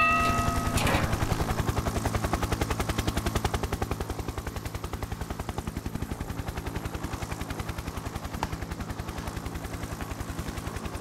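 Mechanical alarm clock ringing: after a brief ringing tone at the start, a rapid, even clatter of about ten strokes a second that slowly fades.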